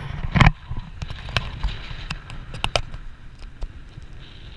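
Wind buffeting the camera's microphone, with a low rumble and scattered sharp clicks and knocks; the loudest knock comes about half a second in.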